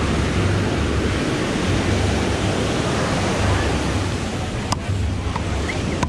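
Ocean surf on the beach, a steady rushing wash, with wind buffeting the microphone in low rumbles that come and go.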